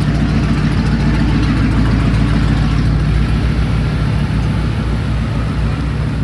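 A car engine running close by at a steady idle, low-pitched and loud.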